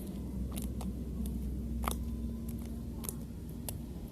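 Slime being squeezed and stretched by hand, giving short sticky clicks about once every half-second to second over a steady low background hum.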